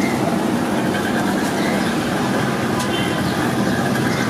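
Steady roar of busy street traffic, with indistinct voices mixed in.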